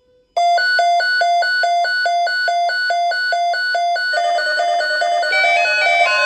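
Electronic beeping: a bright pulsed tone repeating about four times a second starts suddenly. About four seconds in, a second beeping line that steps between pitches joins it, giving a busy, alarm-like tune.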